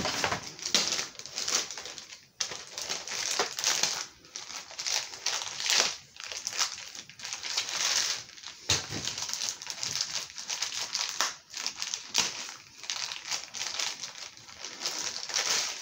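Packaging crinkling and rustling in irregular bursts as toy-kit parts are handled.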